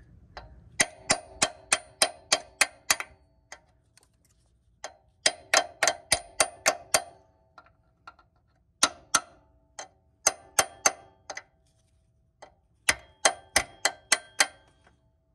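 Small hammer tapping the steel mounting sleeves in the alternator bracket of a Chevy Silverado 5.3, driving them back to make room for the new alternator. Five quick runs of light metallic taps, about four a second, with short pauses between.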